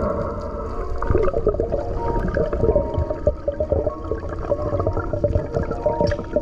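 Muffled underwater sound picked up by an action camera in its waterproof housing: a low rumble with gurgling and crackling.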